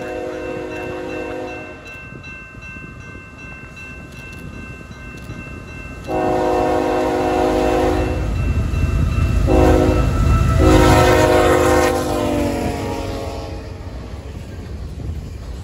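Canadian Pacific ES44AC diesel locomotive sounding its air horn for a grade crossing: the end of one long blast, then a long, a short and a long, the last one dropping in pitch as the locomotive passes. The diesel engine and train rumble build to their loudest as it goes by, then give way to freight cars rolling past with wind noise.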